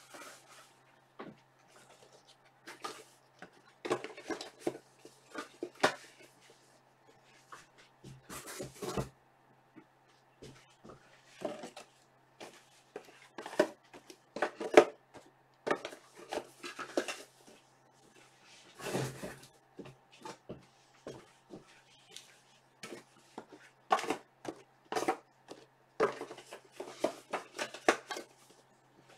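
Irregular knocks, taps and clatter of objects being handled and set down, over a faint steady low hum.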